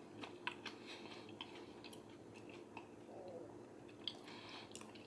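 Faint chewing, with small scattered mouth clicks, of a person eating a soft-bun barbecue shredded chicken sandwich.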